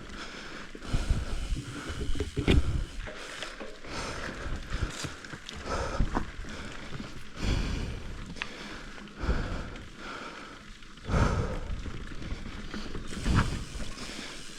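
Mountain bike ridden over a muddy, rough trail: a steady rush of tyres and wind with irregular knocks and rattles as the bike runs over roots and rocks.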